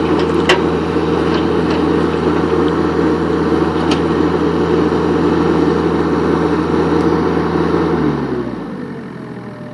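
Kubota U45-3SS mini excavator's diesel engine running steadily at high throttle, with a few sharp clicks in the first half. About eight seconds in it drops in pitch and settles lower and quieter: the auto idle bringing it down to under 1,000 RPM.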